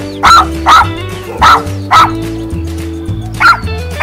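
Dog barks, five short single barks about half a second to a second and a half apart, laid over background music with steady held notes and a bass line.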